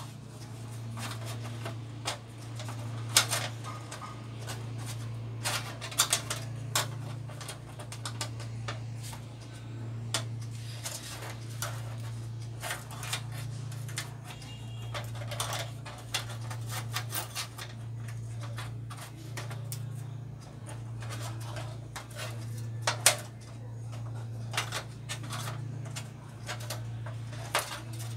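LED backlight strips handled on a TV's sheet-metal back panel: scattered clicks, taps and light scraping as they are set down and pressed into place, the sharpest about 3 seconds in and near the end. A steady low hum runs underneath, swelling and fading every couple of seconds.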